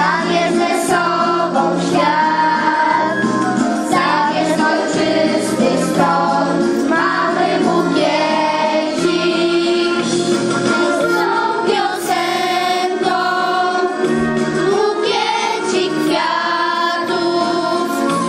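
Children's choir singing, with instrumental accompaniment sustaining steady low notes beneath the voices.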